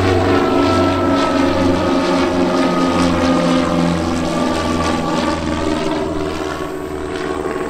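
Piper PA-30 Twin Comanche flying low overhead with gear down, its two piston engines and propellers droning with a slow throbbing pulse, easing slightly near the end.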